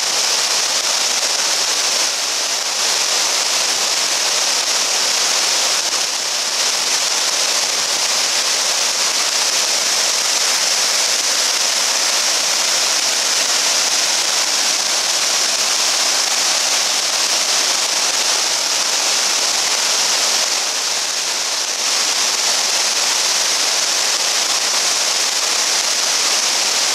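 Waterfall cascading over tiered rock steps: a steady, loud rush of falling water.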